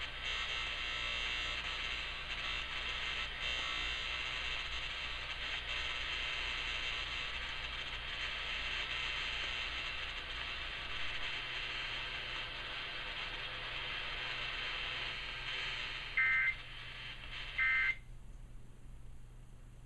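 Steady static from the failed audio of a nationwide Emergency Alert System test. Near the end come two short two-tone data bursts, the EAS end-of-message signal, and the static cuts off right after the second.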